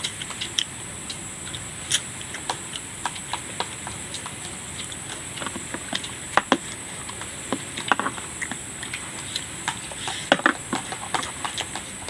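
Close-up eating sounds: irregular clicks and smacks of a person chewing food.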